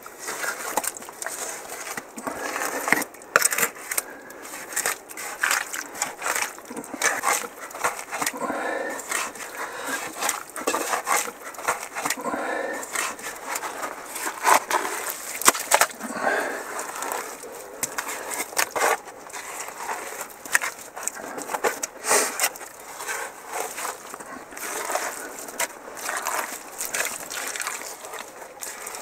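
Gloved hands digging through wet mud and debris in a waterlogged hole: irregular scraping and crackling with frequent sharp clicks and knocks.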